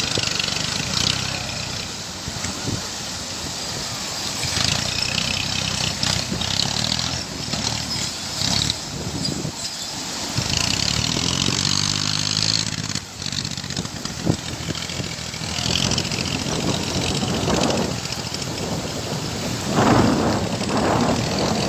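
Tractor engine running under load, its pitch rising and falling as it is revved, with a few louder rushes of noise near the end.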